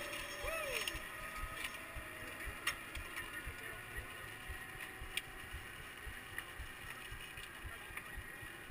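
Faint wind buffeting the microphone in uneven low gusts, with a few faint clicks and a short whistle-like sound that rises and falls about half a second in.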